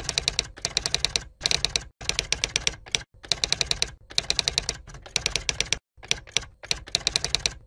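Typewriter keys clacking in quick runs of clicks, about ten a second, each run lasting under a second and broken off by brief complete silences.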